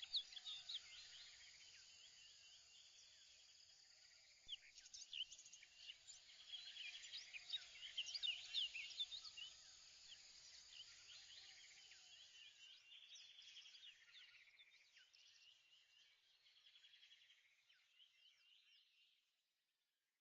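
Many small birds chirping and trilling together in a faint chorus, which fades out near the end.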